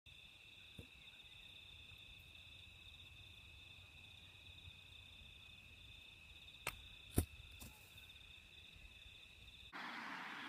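Insects chirring steadily in two high, finely pulsing tones, with two sharp knocks about seven seconds in, the second the louder. Near the end the sound cuts to a louder, even hiss.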